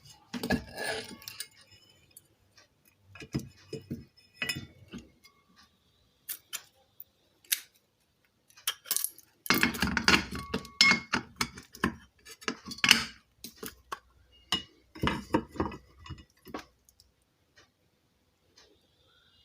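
Ceiling fan motor parts being knocked against a thick wooden block and handled, to loosen a part so it can be pulled out: clusters of knocks and metallic clinks with short pauses between.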